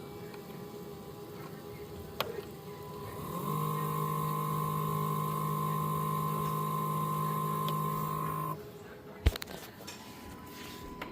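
Dreame X50 base station's motors whining steadily through a mop-washing cycle. The hum steps up louder a few seconds in, runs evenly for about five seconds, then drops back. There is a sharp click shortly before the step up and another just after it drops back.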